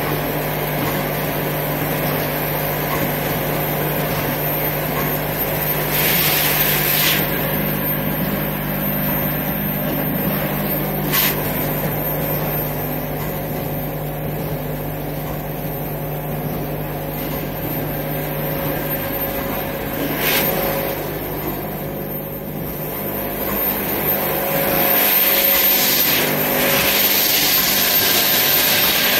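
Shanghai Kingstep eye drop washing, filling and capping machine running: a steady mechanical hum with a low tone, broken by a few brief hisses, and growing louder and hissier near the end.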